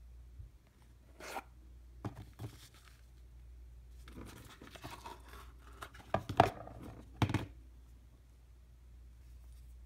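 A cardboard box of a steel disc cutter set being opened and handled: rustling and scraping of cardboard, then a few sharp knocks as the heavy steel block with its loose punches is lifted out and turned in the hands, the loudest coming about six and seven seconds in.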